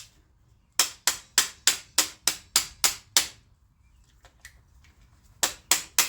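A 1/4-inch ratchet clicking evenly, about three clicks a second, while it backs off the carburetor fuel-bowl bolt. There are two runs of clicking with a short pause between them.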